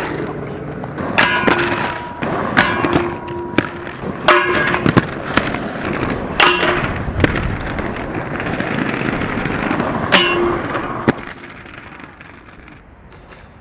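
A skateboard rolling, with a series of sharp clacks and short metallic rings as the board and trucks strike the ground. The rolling dies down near the end.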